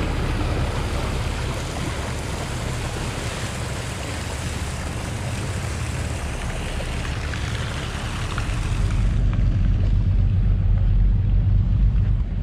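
Water rushing and splashing along the hull of a sportfishing boat under way, with wind on the microphone held out over the side. About nine seconds in the rush falls away and the boat's engine drones on steadily.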